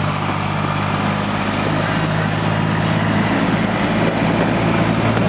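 Miniature railway train's engine running steadily, a low even hum with a noisy rumble over it.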